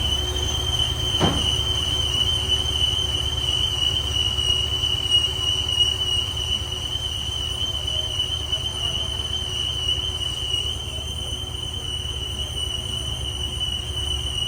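Heavy boring machine running on a steel pipe: a steady high-pitched whine over a low hum, with one brief click about a second in.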